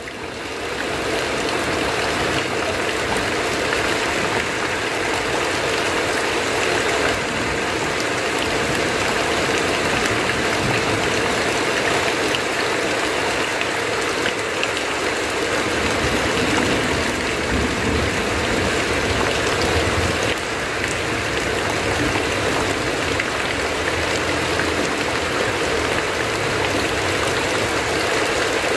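Heavy rain drumming on a tin roof, with runoff streaming off the roof edge: a steady, dense rush that fades in over about the first second.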